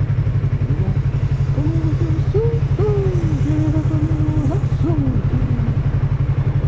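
Yamaha MT-03's parallel-twin engine idling steadily, with an even, pulsing beat that holds one pitch throughout.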